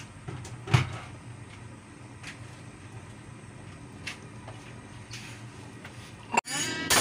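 Pot of chicken broth heating toward a simmer: faint scattered ticks over a steady low hum, with one knock about a second in. Near the end a stainless steel pot lid clanks on with a bright metallic ringing.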